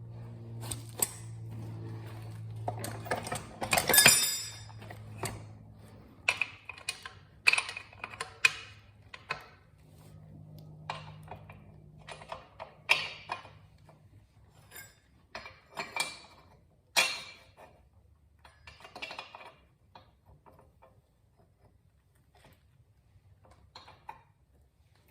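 Metal parts and tools knocking and clinking at irregular intervals as a motorcycle rear wheel is being fitted, with the loudest clatter about four seconds in.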